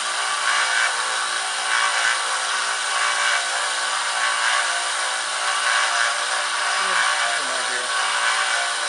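Small 1x30 bench belt sander running steadily while a sword blade is held against the moving belt to grind its edge.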